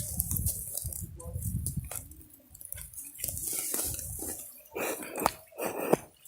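Camera handling noise while the camera is being set on a tripod: irregular rustling, scraping and knocks on the microphone, with a low rumble in the first two seconds and a few sharper clicks near the end.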